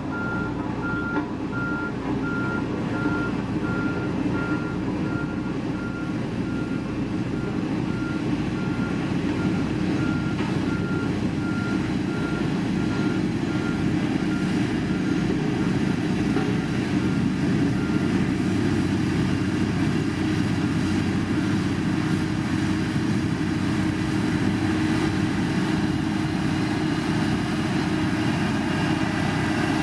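Heavy road-construction machine's diesel engine running steadily, with its reversing alarm beeping in a rapid, even series that stops a little past halfway.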